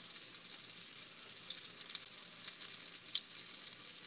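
Mahi mahi fillets frying in a pan of hot butter, oil and minced garlic: a steady sizzle with small scattered crackles of spitting fat and one sharper pop about three seconds in.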